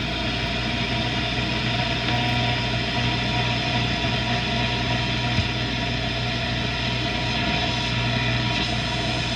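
Shortwave static and hiss from a Norelco Bi-Ampli tube radio's speaker as the dial is swept slowly between stations, with a low hum and a few faint held whistles under the steady noise.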